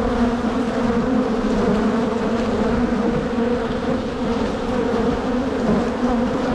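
Loud, steady buzzing of a mass of honey bees from an open hive, their hum sitting in bands around 250 and 500 Hz, with a few faint clicks as a frame is worked loose.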